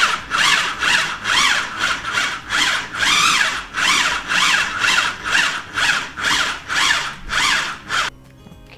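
Food processor motor run in short pulses, about two a second, each spin-up and spin-down rising and falling in pitch, stopping about eight seconds in. It is grinding sliced almonds, sugar, lemon zest and egg into almond paste, pulsed rather than run steadily so the almonds don't release their oil.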